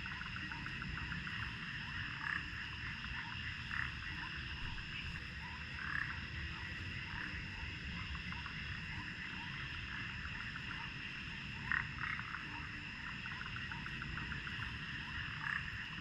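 Frogs calling in a chorus: a dense run of rapid, repeated croaks, with a few louder calls standing out now and then. Under them sit steady high ringing tones and a low, even background noise.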